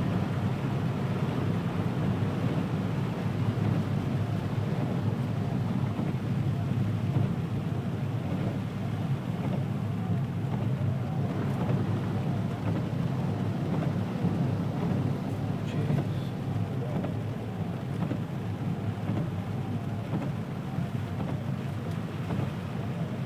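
A car driving slowly through floodwater: a steady low rumble with the wash of water around the tyres and wheel arches.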